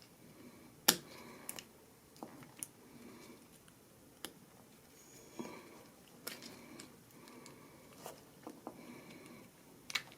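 Scattered light clicks and taps of small metal and plastic parts being handled as a car door lock cylinder is taken apart, the sharpest click about a second in and another near the end.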